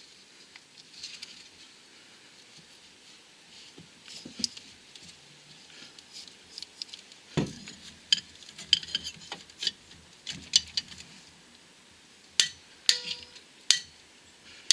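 Scattered metallic clicks and clinks of hand tools against metal clutch parts, coming thicker in the second half. Several sharper clinks near the end, one with a short ringing tone.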